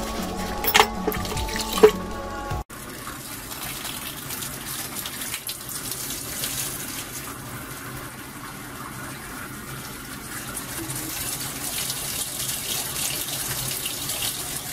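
Two sharp clinks of glassware being washed, over faint music. Then, after a cut, a steady rush of running water from the kitchen sink tap and its drain plumbing, whose drain is blocked.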